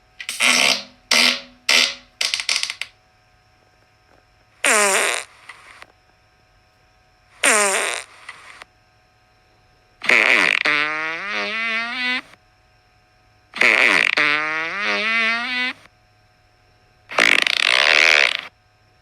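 A run of fart sounds, one after another with short pauses between them. First come four short quick ones, then two brief single ones, then two longer rippling farts that rise in pitch, and a last long airy one.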